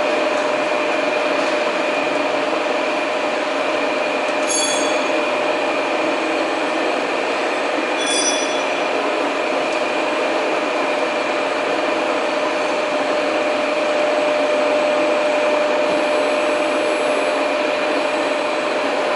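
WMW 90/3 CNC horizontal boring machine running with its rotary table traversing along the bed: a steady mechanical hum with a constant whine over it. Two brief high chirps come about four and eight seconds in.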